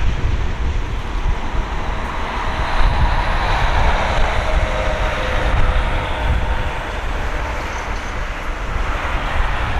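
Jet engine noise from a Boeing 777-300ER's GE90-115B turbofans: a steady rushing roar with a faint whine, swelling a little a few seconds in and easing toward the end. Wind rumbles irregularly on the microphone underneath.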